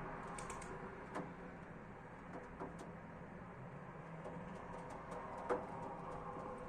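Pigeons' beaks and feet tapping on a window bird feeder: scattered sharp taps, a small cluster near the start and the loudest about five and a half seconds in, over a steady low hum of city traffic.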